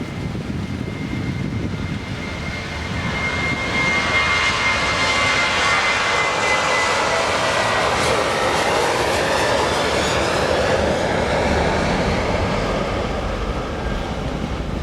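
Boeing 737-800's CFM56-7B turbofans on a departure, jet noise building to a loud plateau as the plane goes past and then easing, with a high fan whine that slides slowly down in pitch.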